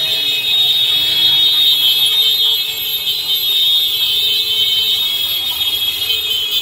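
A continuous shrill, high-pitched tone sounding without a break, with a lower steady tone coming and going beneath it.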